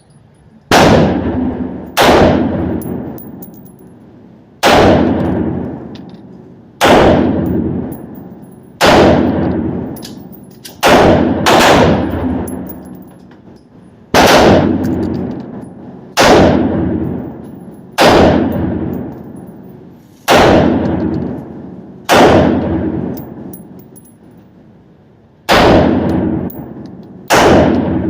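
AR-15 rifle in 5.56 firing about fourteen single shots at a steady pace, roughly one every two seconds, with two quicker pairs. Each sharp crack is followed by a long echoing decay.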